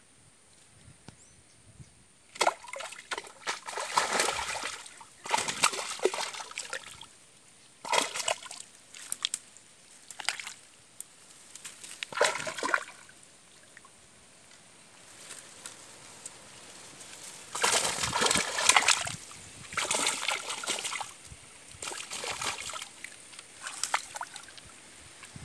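A hooked traíra (wolf fish) thrashing and splashing in shallow water while it is fought on a pole. The splashing starts about two seconds in and comes in irregular bursts of sloshing.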